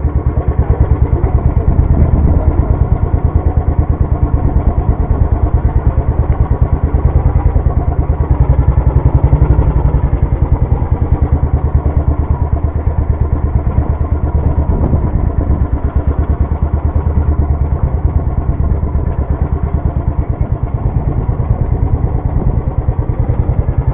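Motorcycle engine running at low speed while riding, a steady rapid train of even exhaust beats, loud and close from the bike carrying the camera, easing off slightly a couple of times.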